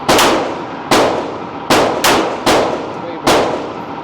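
Handgun shots fired in quick succession, about one every 0.8 seconds, five in all, each a sharp crack followed by a ringing, echoing tail in the range.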